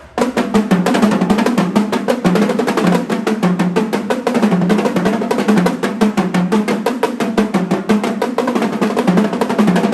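Marching band drumline, snares and tenor drums, playing a fast, driving cadence of rapid strokes.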